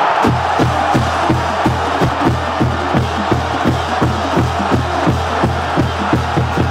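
A bass drum beating steadily, about three strokes a second, over steady crowd noise.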